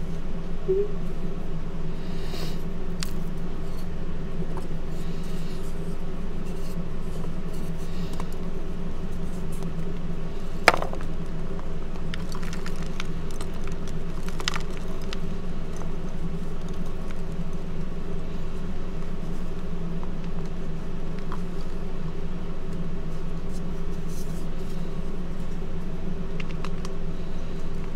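Hand crushing reformed gym chalk discs: scattered dry crunches and crumbles, with one sharp crack near the middle. A steady low hum runs underneath and is the loudest sound throughout.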